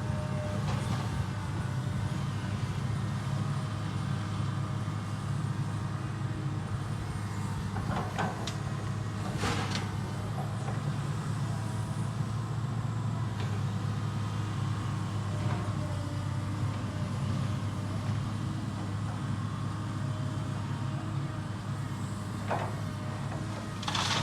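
Heavy construction machine's engine running steadily, with a few sharp knocks and clanks every few seconds.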